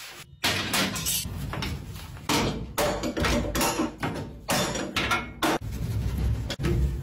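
A cloth being scrubbed in quick back-and-forth strokes over the enamel top of a gas hob, with knocks and bumps as the hand works around the burner bases.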